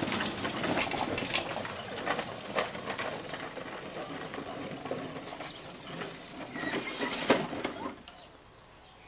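Hard plastic wheels of children's low-rider tricycles rolling on an asphalt driveway, a rough rumble with scrapes and clatters, which dies away about eight seconds in as the trikes stop.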